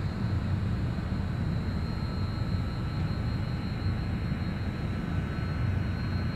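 A steady low rumble with a faint thin high-pitched tone over it.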